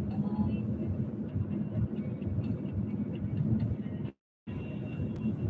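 Steady road and engine rumble heard from inside a moving vehicle's cabin. The sound cuts out abruptly for a moment about four seconds in, then returns.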